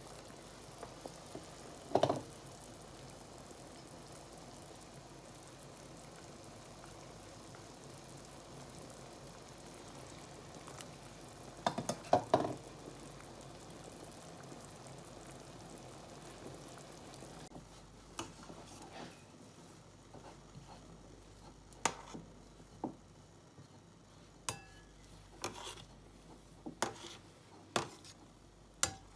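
Pot of water boiling with quark dumplings in it, a steady bubbling. A utensil knocks against the pot a few times, twice in loud clusters. In the later part the bubbling is quieter and there are many light clinks of a slotted spoon against the pot.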